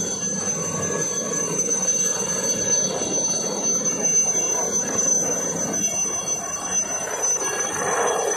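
A steady high-pitched ringing tone over a continuous mix of outdoor background noise.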